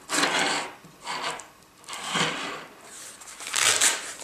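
Objects being handled by hand: four short scraping, rubbing rustles, the last one near the end the loudest.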